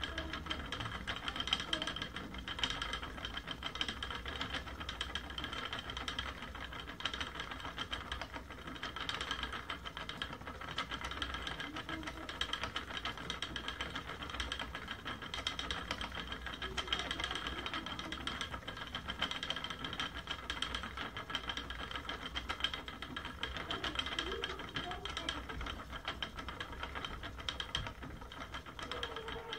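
Wooden spinning wheel running while plying yarn: a steady whir from the spinning flyer and wheel, with a constant patter of small clicks and knocks from the moving parts.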